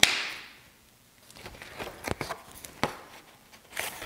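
6mm clear double-sided tape being pulled off its roll and laid onto cardstock: a short peeling rasp at the start and another near the end, with light taps and paper handling between.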